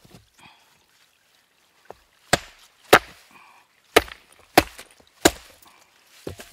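Rock hammer striking a chisel set against a rock nodule. About six sharp blows, starting about two seconds in and roughly half a second to a second apart, chiselling along a crack line to free a fossil from the rock.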